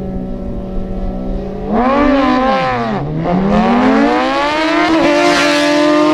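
Drag-racing motorcycle engines idling, then revved up and back down about two seconds in. Then they pull away at full throttle, the pitch climbing steadily for a few seconds and holding high near the end.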